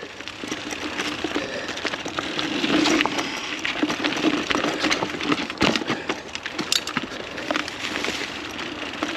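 Mountain bike riding along a dirt trail, heard from a chest-mounted camera: steady rushing tyre and air noise with frequent sharp clicks and rattles as the bike goes over the rough ground.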